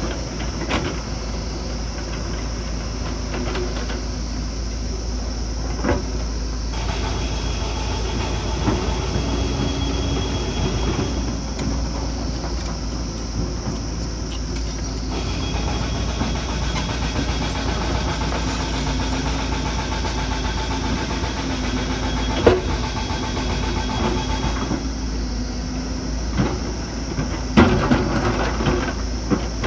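Diesel engine of heavy earthmoving machinery running under varying load, with a whine that comes and goes and a few sharp metallic clanks, the loudest about two-thirds of the way through and several near the end.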